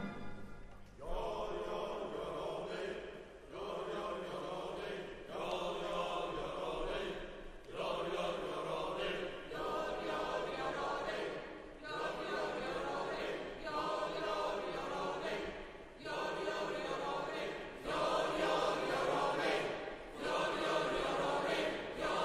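Symphony orchestra playing a soft passage. Sustained phrases swell and fade about every two seconds, with brief dips between them.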